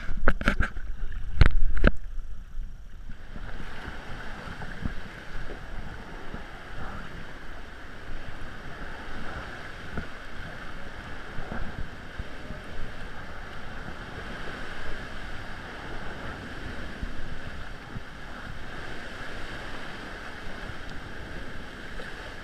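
Sea water splashing and washing around a paddled sea kayak. There are a few loud splashes in the first two seconds, then a steady wash of water and wind.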